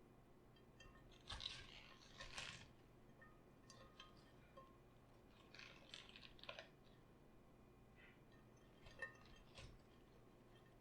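Faint crunching of raw cabbage being worked by hand, in three short spells of crisp crackle.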